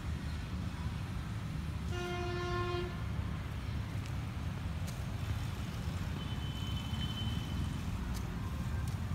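A horn sounds once, holding a single steady pitch for about a second, over a steady low rumble.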